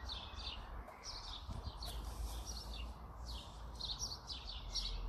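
Small songbirds chirping in quick runs of short, high notes, over a steady low rumble.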